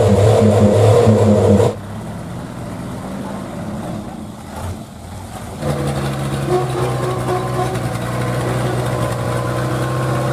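Diesel engine of a Ragasa 4x4 truck revving hard, dropping away suddenly about two seconds in; from about halfway it runs at a steady speed under load as the truck works through deep mud.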